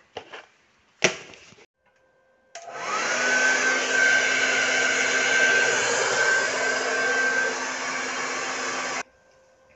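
Handheld hair dryer blowing. It starts about two and a half seconds in with its motor whine rising as it spins up, runs steadily, and cuts off abruptly near the end. A brief knock comes about a second in.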